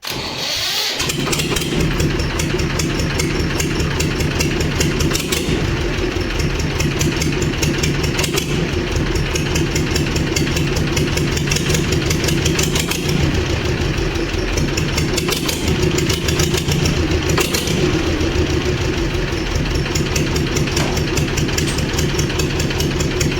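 Swaraj 724 tractor's two-cylinder diesel engine starting with its silencer removed, catching within about a second and then running unmuffled and very loud, with fast, even exhaust pulses.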